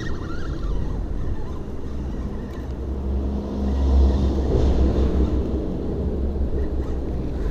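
A passing engine's low rumble, swelling to its loudest about halfway through and then easing off.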